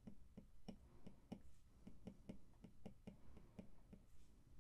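Apple Pencil tip tapping faintly on the iPad's glass screen, about three or four light taps a second, as short repeated strokes are drawn.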